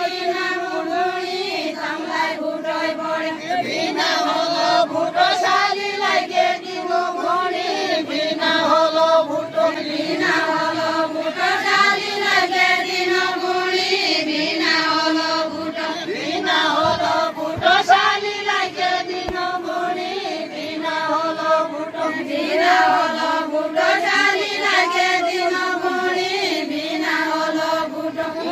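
A group of voices singing a deuda, the far-western Nepali folk song, in chant-like unison, phrase after phrase.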